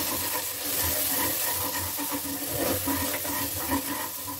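Spice masala with onions and tomatoes sizzling as it fries in an open pressure cooker, stirred and scraped with a wooden spatula.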